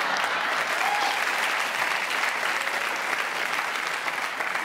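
Studio audience applauding: many hands clapping at once in a steady, dense clatter.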